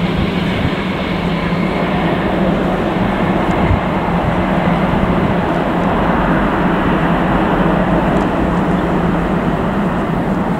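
Steady jet engine noise from an Airbus A350's Rolls-Royce Trent XWB engines as the airliner rolls out along the runway after landing.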